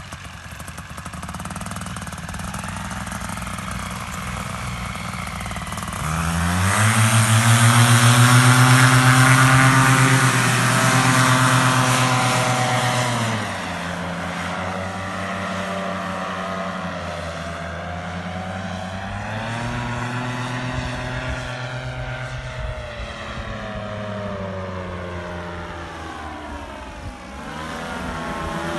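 Paramotor engine and propeller: steady at low power, then throttled up hard about six seconds in and held at high power for several seconds for the takeoff, eased back, and opened up again in a couple more surges near the end.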